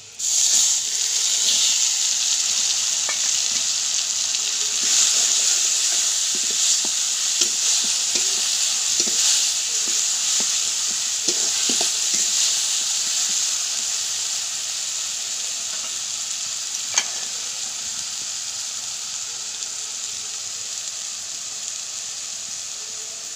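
Ground ginger-garlic and chili paste frying in hot oil with fried onions in a kadai: a loud sizzle that starts suddenly as the paste goes in and slowly dies down while a spatula stirs it. There are a few light scrapes of the spatula on the pan and one sharp click about 17 seconds in.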